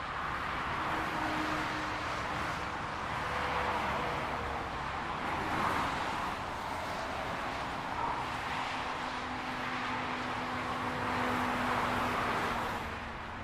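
Highway traffic: a continuous wash of tyre and engine noise from vehicles passing, swelling and easing as individual cars go by.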